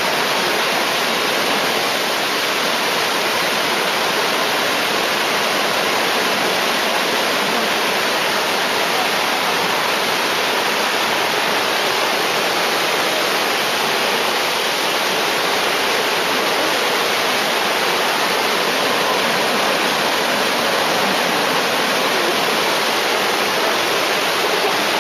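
The Eisbach river's standing wave: fast whitewater rushing over the step in a loud, steady, unbroken wash of noise.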